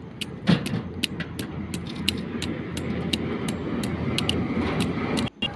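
Rapid sharp metal clicks, about three a second, with one louder knock about half a second in, as a tool works the bolted clamp that binds copper earthing wire to a copper ground rod while it is tightened. A steady low rumble runs underneath.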